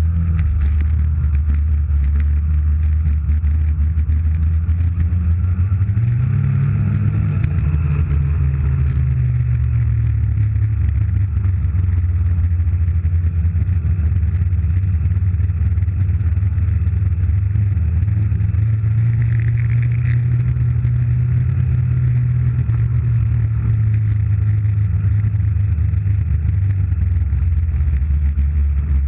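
Snowmobile engine running steadily under way while towing a sled. Its revs rise briefly about six seconds in, then settle.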